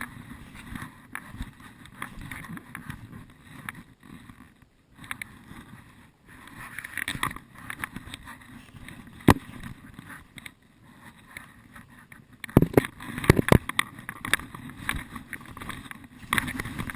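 Footsteps crunching and rustling through dry forest undergrowth, with one sharp snap about nine seconds in and a run of louder crunches and knocks a little after twelve seconds.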